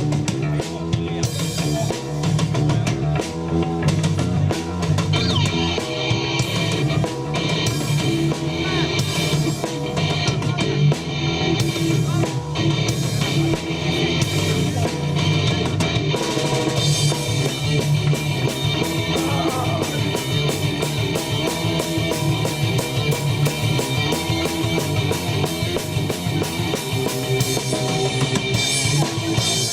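A rock band playing live: a drum kit keeping a steady beat under electric guitar.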